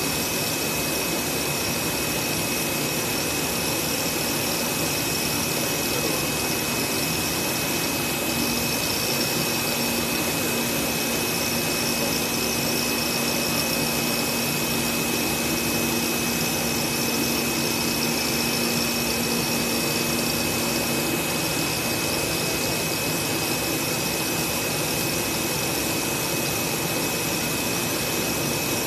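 Milling spindle of a flatbed CNC cutting machine running steadily as it cuts an acrylic sheet, a high steady whine over a constant rush of air from the machine's suction. A lower hum joins about eight seconds in and drops away around twenty-one seconds.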